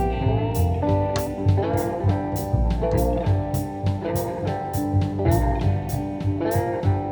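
Background music: a guitar-led instrumental with a bass line and a steady drum beat.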